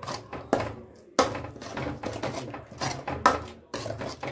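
Steel ladle scraping and knocking against a metal kadhai while thick masala paste is stirred and fried (bhuna), with several sharp clacks between softer scrapes. A steady low hum runs underneath.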